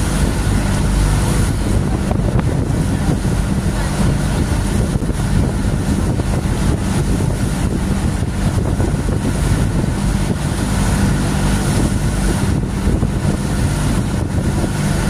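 Motorized outrigger boat's engine running steadily underway, a constant low hum, with wind buffeting the microphone and water rushing and splashing at the bow.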